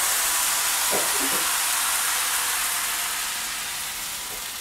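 Fermented rice-and-coconut appam batter sizzling in a hot appam pan while the pan is tilted and swirled to spread it; the steady hiss slowly fades.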